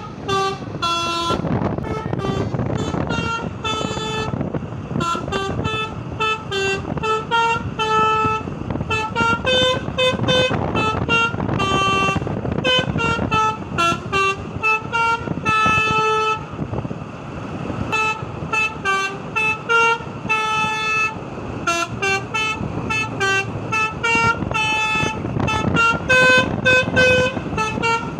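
Indonesian Basuri telolet multi-tone bus horn playing a sholawat (Islamic devotional song) melody as a quick run of short, changing horn notes, over a steady background noise.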